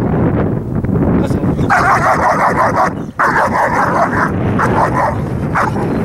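German Shepherd barking in rapid, run-together strings while lunging on its leash at a decoy, loudest from about two seconds in, with a short break near the middle.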